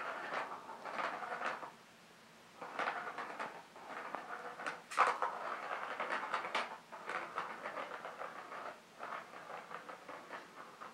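A small ball clattering and rolling around inside the hard plastic track of a Catit Senses Circuit cat toy as kittens bat at it. It comes in several bursts of rattling clicks and knocks, with a short pause about two seconds in.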